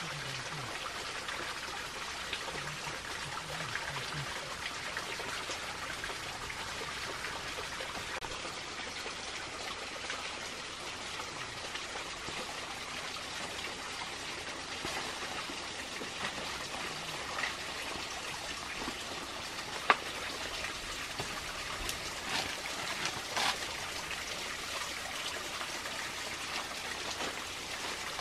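A steady hiss of trickling water, with one sharp click about twenty seconds in and a few smaller clicks shortly after.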